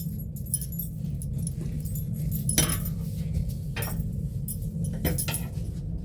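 A few light clinks and rustles of small objects being handled, over a steady low hum.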